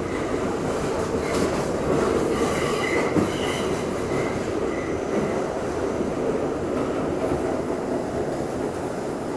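1964 Budd R32 subway train running along the track with a steady rumble. Faint high wheel squeals come and go in the first half.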